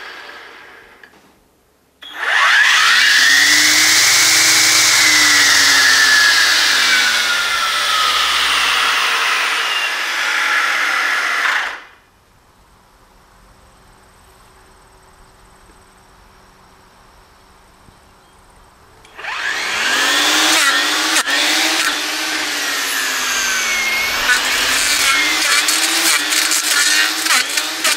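EGO 56V cordless power head's electric motor whining as it spins up unloaded, its pitch rising and then slowly sinking, and cutting off; after a quiet pause it spins up again as a 3-tooth 10-inch brush cutter blade cuts into brush and saplings, with rapid cracks and ticks of wood being struck over the motor's whine.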